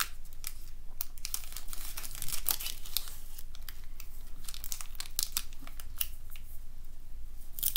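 Plastic foil wrapper of a Pokémon trading card booster pack crinkling under a child's fingers as he works at tearing it open, an irregular run of sharp crackles.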